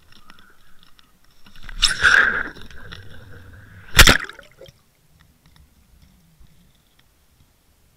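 Water Wolf underwater fishing camera cast out on the line with an umbrella rig: a burst of rushing noise for about a second, then one sharp smack as it hits the water about four seconds in, followed by faint, muffled underwater sound.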